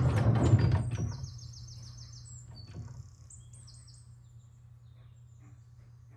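A wooden pine dresser drawer sliding in its runners: a rough rumbling slide with a few knocks, lasting about a second. It is followed by a bird chirping a quick run of high notes, with a low steady hum underneath.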